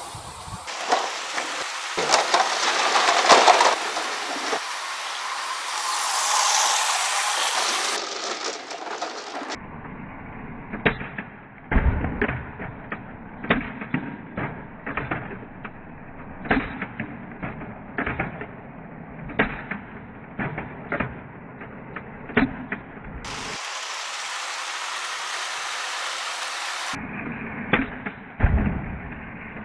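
Nerf foam-dart blaster being primed and fired again and again, sharp clacks about one to two a second, with stretches of steady noise between them.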